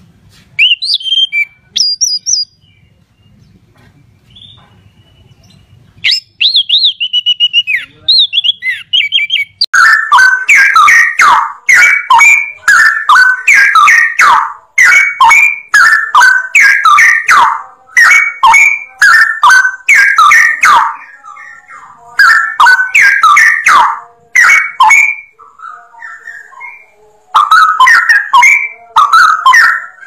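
Caged songbirds singing: first a thrush (anis macan) giving a few high thin chirps and a short warble, then from about ten seconds in a straw-headed bulbul's loud, rich song of quick repeated phrases.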